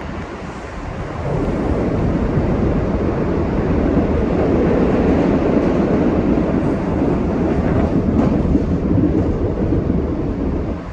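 MBTA Blue Line subway car running at speed, a steady rumble of wheels on rails heard from inside the car. It grows louder about a second and a half in.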